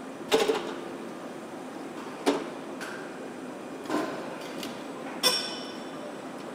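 Car assembly-line noise: a steady factory hum with four sharp metallic clanks, the last one ringing briefly.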